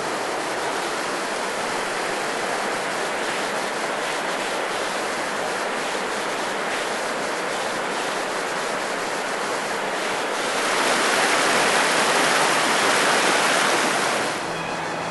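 Steady rush of river water, growing louder for a few seconds about ten seconds in, then dropping back.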